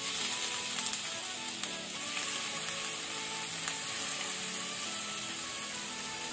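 Raw prawns sizzling steadily in hot oil with fried garlic and curry leaves in a nonstick frying pan as more prawns are dropped in, with a few faint clicks. Background music with held notes plays underneath.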